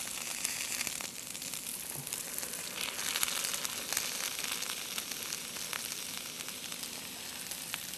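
Butter and onions sizzling steadily in an enamelled cast-iron pot, with scattered crackles.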